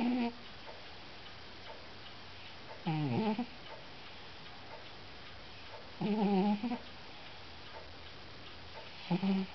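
Domestic cat snoring in its sleep: short pitched snores, each under a second, come evenly about every three seconds with each breath.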